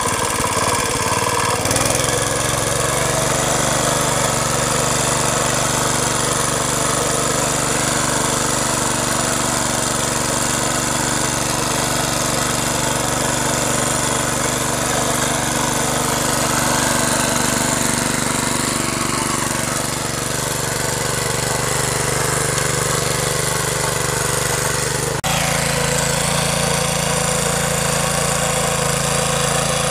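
Century power weeder's small air-cooled engine running steadily under load as its rotary tines till the soil. The engine note changes abruptly about 25 seconds in.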